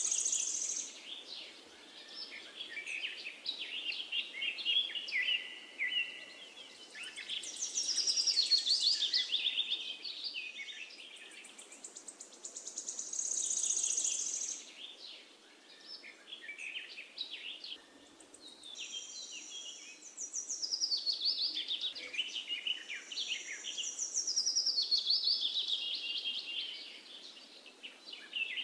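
Songbirds singing: phrases of rapid chirps and trills recurring every few seconds, several calls overlapping, over a faint steady background hiss.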